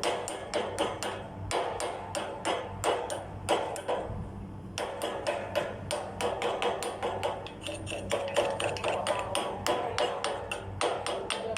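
A hammer striking metal in quick blows, about five a second, each with a short ring, pausing briefly twice.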